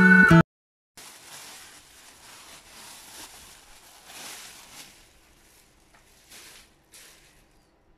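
Acoustic guitar music cuts off just after the start. Then a thin plastic bag crinkles and rustles in irregular swells as a bunch of fresh spinach is pulled out of it, with two short rustles near the end as the spinach is handled on the board.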